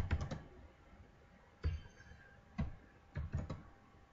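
Scattered keystrokes on a computer keyboard: a few single clicks and short runs of several, with pauses between.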